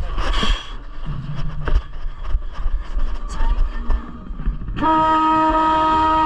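Drum and bugle corps brass section cutting in with a loud, held chord about five seconds in, after a quieter stretch of scattered taps and clicks.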